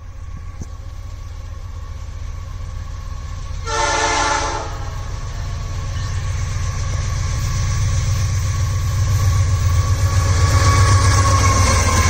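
Diesel freight locomotive approaching, its low engine rumble growing steadily louder as it draws near. It gives one horn blast about a second long, around four seconds in.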